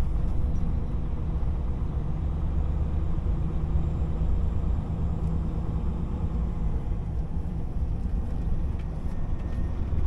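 DAF XF 480 lorry under way, heard from inside the cab: its PACCAR MX-13 six-cylinder diesel running steadily, mixed with tyre and road noise into a low drone.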